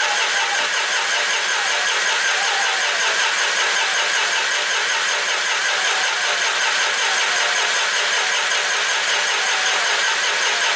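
John Deere 5400's three-cylinder diesel engine cranking steadily on the starter without firing, with the throttle at high idle and the injector lines cracked open to bleed air from the fuel system.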